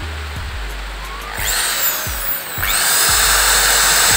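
Maktec MT80B impact drill run with no load. Its motor whirs up briefly about a second in and dies away, then is switched on again and spins steadily at full speed with a high whine. It runs smoothly, with no trouble heard.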